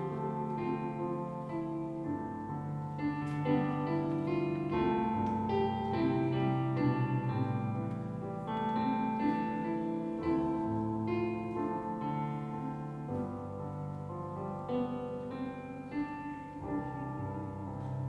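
Piano music played on a Yamaha S90 digital keyboard: held chords over a bass line that moves every second or two.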